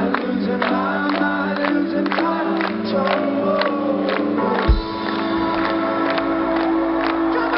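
Indie rock band playing live, with sung vocals over a steady beat of about three hits a second. About two-thirds of the way in, a heavy low hit lands and the band swells into sustained chords, with massed voices singing along.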